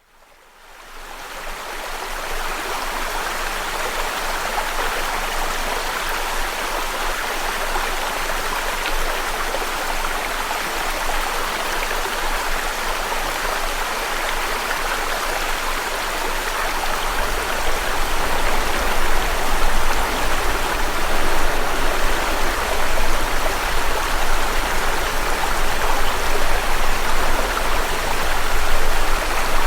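Steady rushing noise of running water. It fades in over the first couple of seconds and grows a little louder, with a low rumble, after about seventeen seconds.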